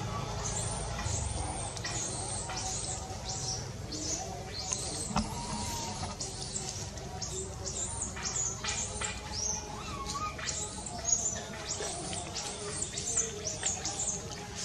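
Baby macaque crying: a rapid, continuing series of short, high-pitched squeals, several a second.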